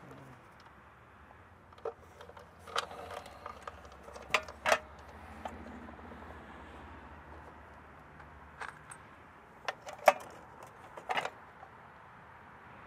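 Scattered light metallic clicks and knocks, about eight in all, as a sheet-metal AC disconnect box is handled and fitted against the wall, with wires being fed into it.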